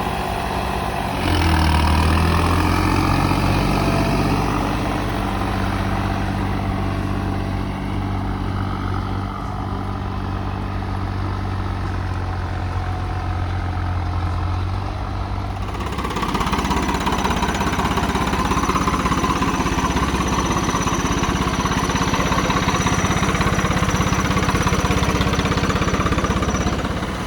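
Turbocharged Swaraj 855 tractor's diesel engine running steadily. It picks up about a second in and changes note about sixteen seconds in, when a thin high whistle joins it until just before the end.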